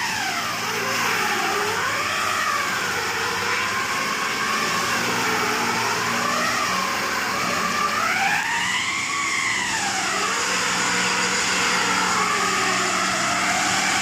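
A heavy truck's tires spinning on ice over a steady engine drone, as the truck fails to climb an icy hill. The whine rises and falls several times as the throttle is worked, with the biggest rise and fall about two-thirds of the way through.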